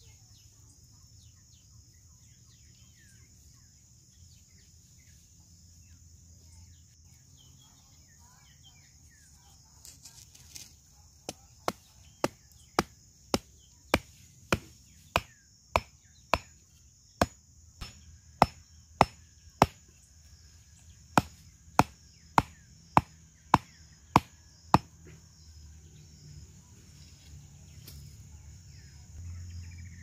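A wooden stake being hammered into sandy ground: about twenty sharp knocks, a little under two a second, starting about ten seconds in, pausing briefly, then stopping near the end. A steady high drone of insects runs underneath.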